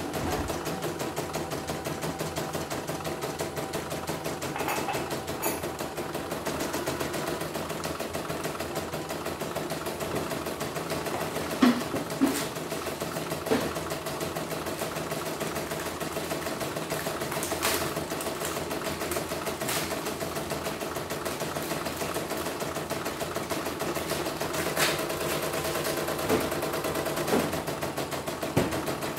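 A CNY computerized embroidery machine stitching a design, a steady fast run of needle strokes over the motor's hum, with a few sharper clicks now and then. The machine is running on a freshly fitted rotary hook, stitching without snagging.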